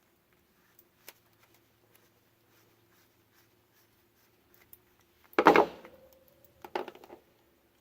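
Light handling ticks, then a loud clatter of hard objects with a short ringing note about five and a half seconds in, and a second, smaller clatter about a second later.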